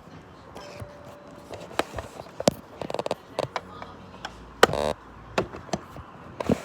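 Handling noise: a series of clicks and knocks from things being set in place, with one brief, louder rattle a little past the middle.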